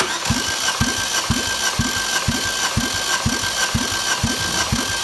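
Opel 1.6 Z16XER four-cylinder engine cranked over on its starter motor for a compression test on cylinder two. A steady starter whine runs under a low pulse about twice a second as the engine turns over without firing. The cylinder builds 9 kg/cm² of compression.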